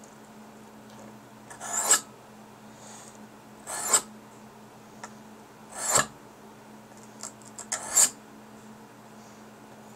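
Stainless steel kitchen knife blade drawn across the ceramic side of a Fallkniven DC4 whetstone: four sharpening strokes about two seconds apart, each swelling to a sharp finish as the blade leaves the stone.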